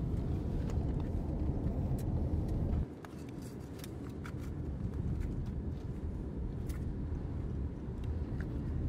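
Road and engine noise inside a moving car's cabin: a steady low rumble with a few faint ticks. It drops suddenly in level about three seconds in, then carries on quieter.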